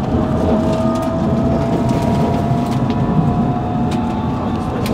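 London Underground Metropolitan line train running between stations, heard from inside the carriage: a steady rumble of wheels on rail with a faint motor whine creeping slightly up in pitch, and occasional sharp clicks from the track.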